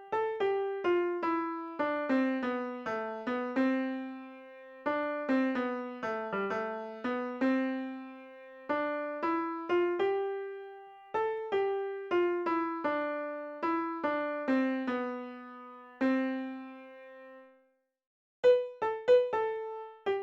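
Background music: a gentle piano-like keyboard plays a simple melody of single struck notes that ring and fade, in short phrases. It breaks off for under a second near the end, then starts again.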